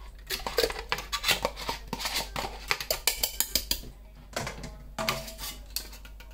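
Spoon scraping and tapping against plastic yogurt cups and a blender jar as yogurt is spooned in: a run of quick clicks and knocks, a short pause, then a few more about five seconds in.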